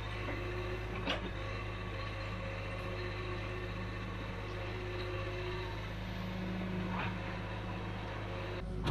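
Hitachi UH043 hydraulic excavator's diesel engine running steadily while digging, with a sharp clank about a second in and another about seven seconds in.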